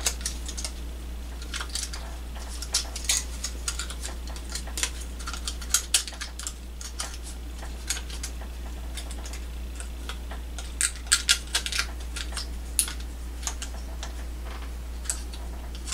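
Scattered light clicks and taps from small plastic and metal parts being handled as a CD player's laser pickup assembly is worked loose, over a steady low hum.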